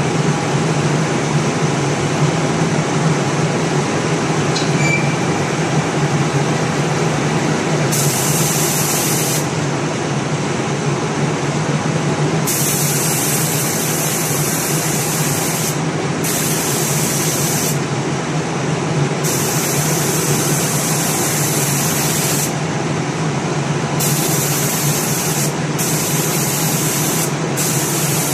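Automatic spray-painting machine running with a steady hum, its spray guns hissing on and off in bursts of one to three seconds, starting about eight seconds in.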